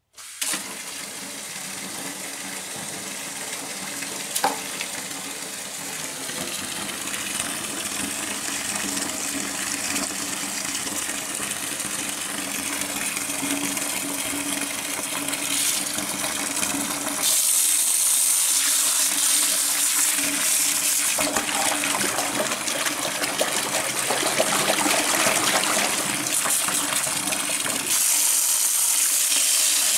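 Tap water pouring in a steady stream into a plastic bucket, splashing over a smartwatch held under the stream. There is a single sharp click about four seconds in, and a little past halfway the splashing turns brighter and more hissing.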